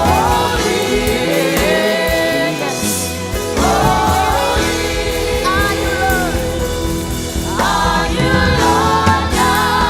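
Live gospel worship music: singers with a band, sung lines held and bending over a steady accompaniment.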